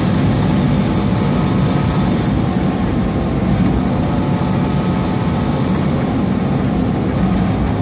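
Steady drone of a semi truck's diesel engine and tyre noise, heard inside the cab while cruising at freeway speed.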